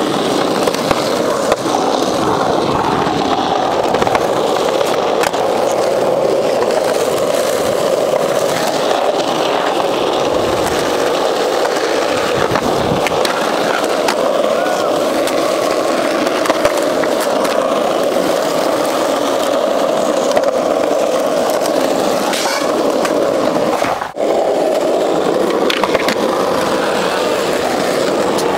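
Skateboard wheels rolling over rough parking-lot asphalt in a steady rumble, broken by occasional sharp clacks of the boards.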